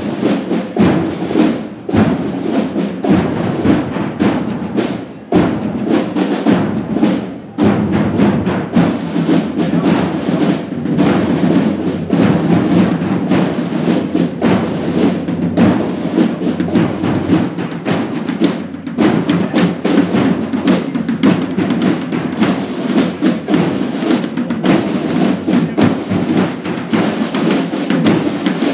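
Holy Week procession drums beating a fast, steady marching rhythm, with a few brief breaks in the first eight seconds.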